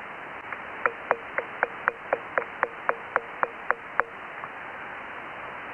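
About a dozen sharp taps at roughly four a second, picked up by an Icom IC-7000's hand microphone and heard through the radio's narrow single-sideband audio over steady hiss, each followed by a brief ring. This is the 'ping' fault in the IC-7000's transmit audio, still there but less bad with compression off.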